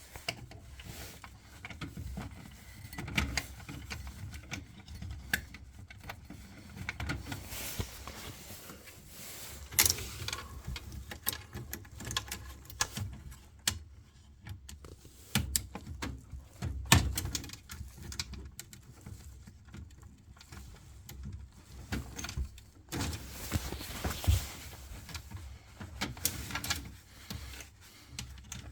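Irregular clicks, knocks and small rattles of hands working inside a gas boiler's casing and control panel, as a circuit board and its plug-in connectors are handled.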